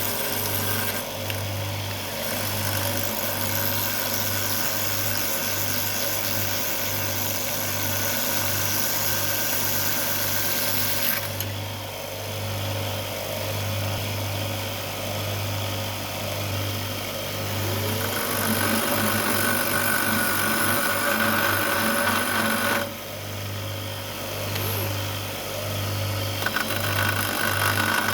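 Electric grinder running with a steady motor hum while a steel bolt head is ground down to sit flush, the grinding hiss easing and returning a few times as the bolt is pressed to the wheel and eased off.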